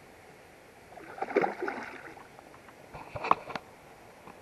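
Water splashing in two short bouts, about a second in and again around three seconds in, as a hooked carp thrashes at the surface during the fight.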